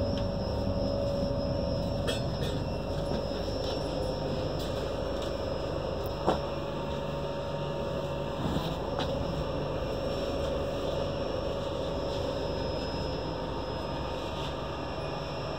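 Passenger coach of an Indian express train running on the track, heard from inside the compartment: a steady rumble with a constant hum and a few sharp clicks, the loudest about six seconds in.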